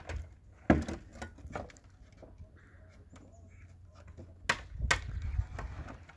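Irregular knocks and clatter of wooden boards being handled during roof building: a few light knocks about a second in and two louder knocks near the end.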